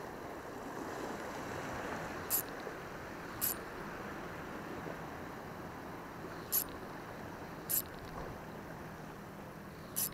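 Sea washing against a rocky shore with wind, a steady rushing hiss. Short, sharp high ticks cut through it in pairs about a second apart, a pair roughly every four seconds.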